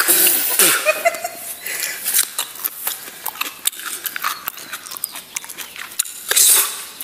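Close-up chewing of raw cucumber: irregular crunches and wet mouth clicks, with a short vocal sound in the first second.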